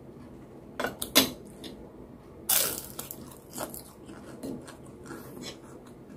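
Close-miked eating sounds: chewing and mouth sounds, with a few sharp taps and scrapes of a metal spoon and fork against the plates and bowl. The loudest sound comes about two and a half seconds in.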